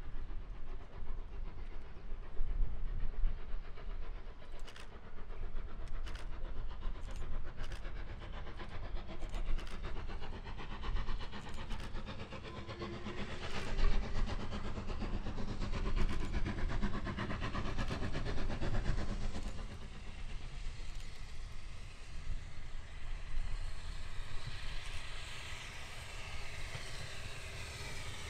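Steam train running along the line, with a run of sharp clicks from the wheels over rail joints and a steady rumble. A hiss builds near the end.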